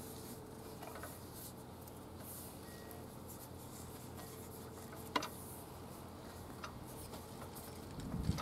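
Faint rubbing and handling of a rubber V-belt as it is worked by hand onto the grooved pulleys of an old engine generator that is not running. There is a sharp click about five seconds in and a low knock near the end.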